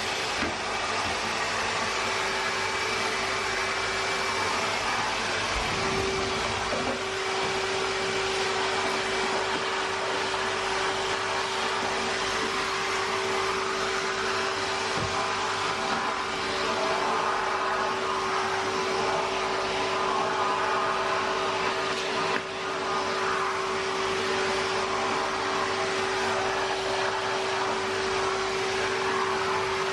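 Canister vacuum cleaner running steadily, a constant rushing noise with a steady motor hum, with a brief dip about two-thirds through.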